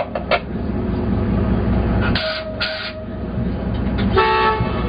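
FIAT 7131 railcar's diesel engine running steadily, heard from inside the driver's cab. About two seconds in there are two short hisses, and near the end a brief horn toot.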